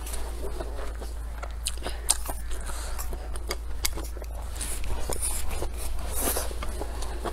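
Close-up eating sounds of braised squid and rice: wet chewing, lip smacks and sucking at the food in quick irregular clicks, with wooden chopsticks tapping and scraping on the plate. A steady low hum runs underneath.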